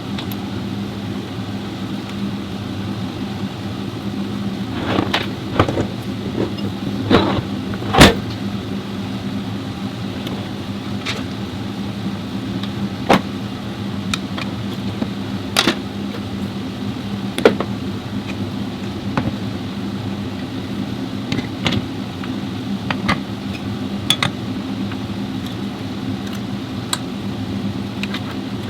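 A car engine running steadily, with scattered sharp clicks and knocks, the loudest about eight seconds in.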